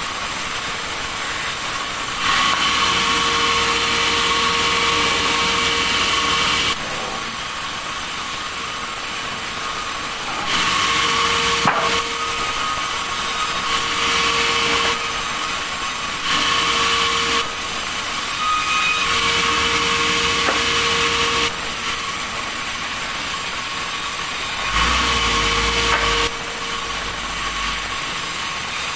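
Sawmill saw running and cutting through a log, a steady mechanical noise with a whine that comes and goes. The noise steps abruptly louder and softer every few seconds.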